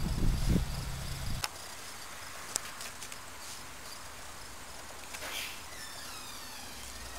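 Wind buffeting the microphone for about the first second and a half, cutting off abruptly; then a quiet outdoor background with a steady high trill of crickets and a few short chirps near the end.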